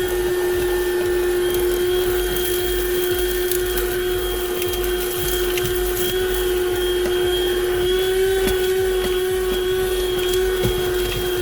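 Buture handheld car vacuum running with a steady motor whine while small rocks and grit tick and rattle as they are sucked up through the nozzle.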